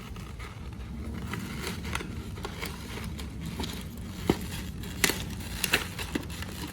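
Plastic toy packaging and small accessories being handled, with crinkling and crackling and a few sharp clicks in the second half.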